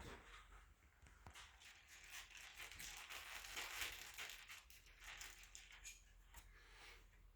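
Faint handling noise of small metal sleeve nuts being set onto roof-rail studs with a magnet: light clicks and scrapes, with a sharper click at the start and another about a second in.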